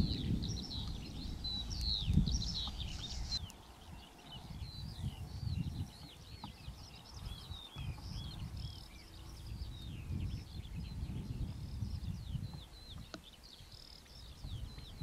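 Small birds chirping and calling continuously over a low rumble that swells and fades. The rumble is the tail of distant thunder dying away at the start and drops off sharply about three seconds in.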